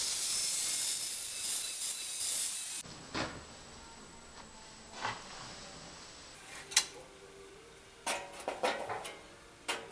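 A loud, steady hiss that cuts off abruptly about three seconds in, then quiet workshop room tone with a few light knocks. From about eight seconds comes a run of metallic clanks and clinks with a short ring, as steel parts are handled on a steel workbench.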